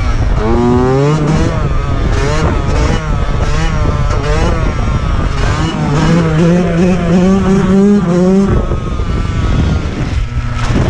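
Motorcycle engine revving up and down under riding, with wind noise. The revs climb steadily for a couple of seconds, then drop off suddenly about eight and a half seconds in.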